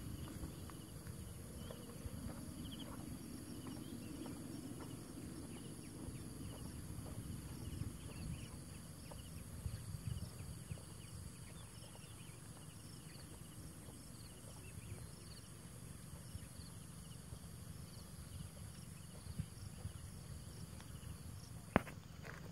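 Insects chirping steadily in the fields over a low rumble, with scattered soft thuds of footsteps on a dirt path.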